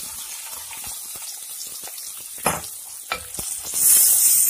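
Sliced onions frying in hot oil in an earthenware clay pot, sizzling, with a spatula knocking and scraping against the pot a few times. The sizzle grows much louder near the end as the onions are stirred through the oil.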